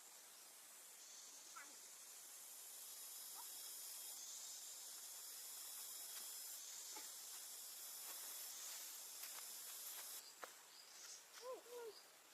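Faint, steady high-pitched hiss of outdoor countryside ambience that shifts in level a few times, with a few short faint chirps, more of them near the end.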